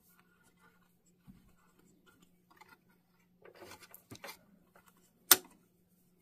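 Light scratching and rubbing of a pipe cleaner scrubbing dirt out of a sewing machine's shuttle area, with small ticks and one sharp click a little past five seconds in.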